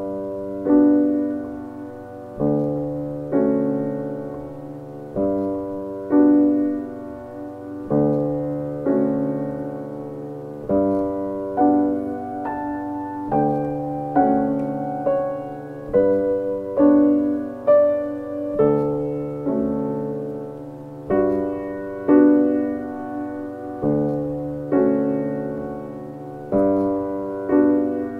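Background piano music: slow, gentle notes and chords struck about once a second, each ringing and fading before the next.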